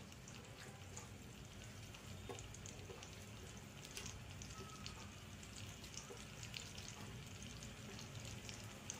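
Tomato, onion, garlic and ginger frying in a non-stick pan: a faint, steady sizzle with scattered small crackles.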